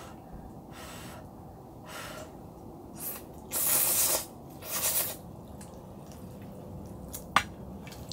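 A person slurping instant ramyeon noodles, two long loud slurps about halfway through, after a few softer breathy sounds. A single sharp click comes near the end.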